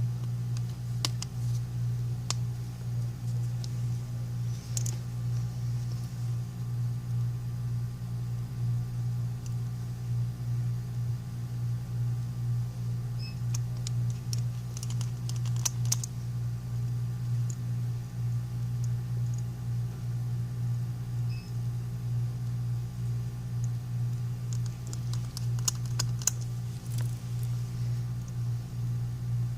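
Small clicks and taps of tools and parts while an iPhone 5C is reassembled, in scattered clusters, over a steady low hum.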